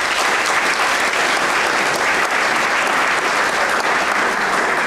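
Audience applauding: many people clapping steadily, dying away about a second after the end.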